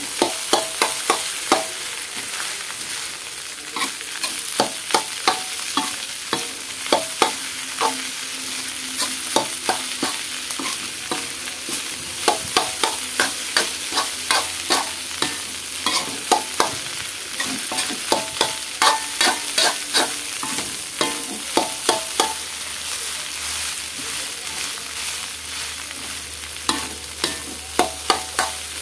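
Metal spatula scraping and clinking against a thin metal wok while egg fried rice is stirred, in a run of quick strokes with short pauses, over a steady hiss of frying.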